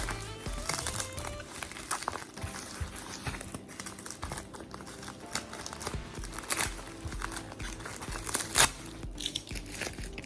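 Packaging being handled and unwrapped, crinkling with many short sharp crackles and one louder snap about eight and a half seconds in, over background music.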